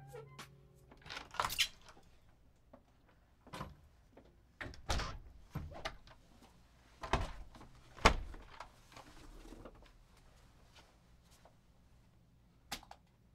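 Scattered knocks and clunks, about half a dozen spread irregularly, the loudest about eight seconds in, over a faint low hum.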